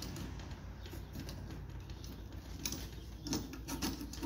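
Faint, scattered metal clicks and taps as a bolt is fumbled through the bottom hole of a steel motor-mount bracket, over a steady low hum.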